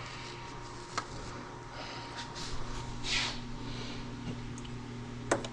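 A cloth wiping a small glass colorimeter cuvette: quiet handling and rubbing, with a brief rub about three seconds in, a single click about a second in and a couple of sharp knocks near the end.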